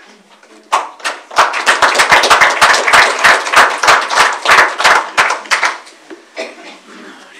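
People clapping, starting about a second in and dying out about six seconds in.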